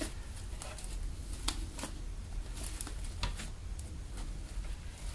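Homemade fluffy PVA-glue slime, made with hand foam, being stretched and folded by hand. It gives off irregular sticky clicks and small pops several times a second as the slime pulls apart and air pockets break.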